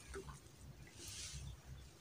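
Faint, soft rustle of stir-fried noodles being lifted and tossed with a ladle in a wok, with no ladle knocks against the pan.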